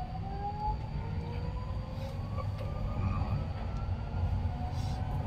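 Subway train running through a tunnel, heard inside the car: a steady low rumble of wheels on rails with thin electric motor whines rising slowly in pitch as the train picks up speed.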